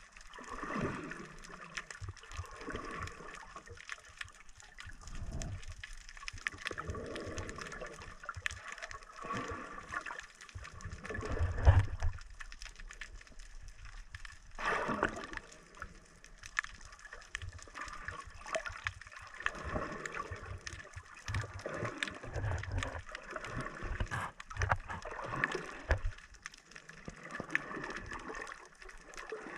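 Water gurgling and sloshing around a submerged camera, in irregular surges, the loudest about twelve seconds in.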